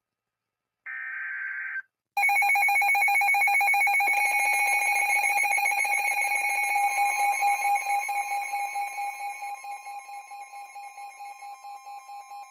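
Emergency Alert System alert audio: a short screeching digital data burst about a second in, then at about two seconds a loud, rapidly pulsing alarm tone that slowly fades. A second steady tone joins partway through, and the alarm breaks into pulses near the end. It is the attention signal that opens the next severe-weather warning.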